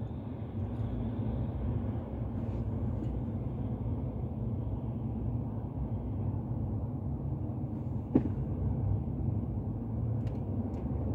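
Steady road and engine rumble heard inside a moving car's cabin, with one brief click about eight seconds in.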